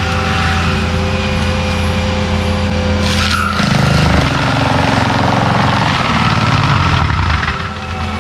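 Compact track loader's diesel engine running hard while driving a forestry mulcher head. About three seconds in there is a short burst of harsher noise and the engine note shifts, as it takes on material, then it settles back to a steady run.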